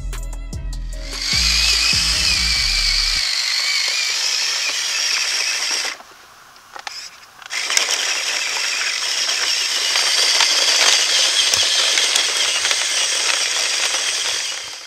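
Electric motor and gearbox of an RC truck whining steadily as it drives and tows its trailer, dropping away for about a second and a half near the middle, then resuming. Music with a bass line plays under it for the first few seconds.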